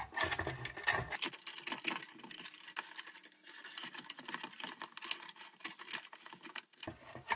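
Lantern parts being handled and fitted together: a quick, irregular run of light clicks and taps as the chimney, glass globe and cap are put in place.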